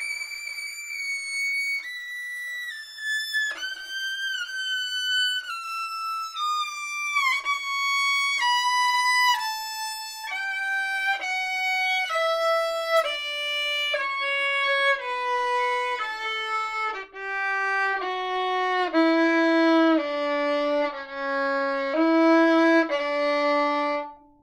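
Solo violin bowing a slow descending scale, one sustained note after another, from very high notes down about three octaves into the low register. At the bottom a few notes step up and down before the playing stops abruptly near the end.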